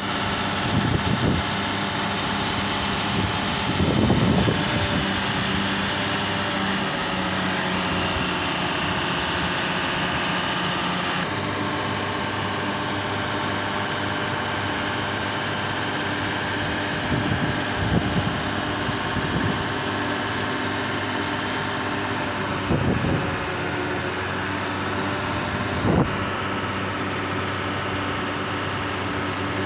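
Diesel engine of a truck-mounted hydraulic crane running steadily while it lifts test weights, with a few short knocks scattered through.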